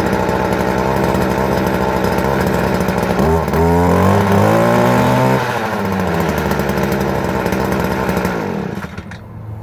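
Stihl FC 56 C edger's small two-stroke engine idling, revved up once for about two seconds a few seconds in, then dropping back to idle. Near the end it is shut off and the engine note falls away.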